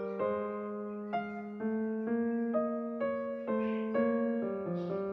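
Background music: a gentle piano melody, about two notes a second.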